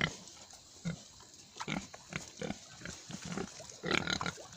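Domestic pigs grunting, a string of short irregular grunts a few times a second, louder and closer together near the end.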